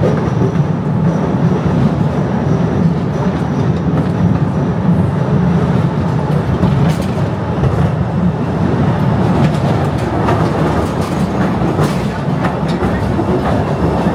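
Postojna Cave's narrow-gauge tourist train running along its track: a steady, loud rumble of wheels on rails, with a few sharp clicks near the end.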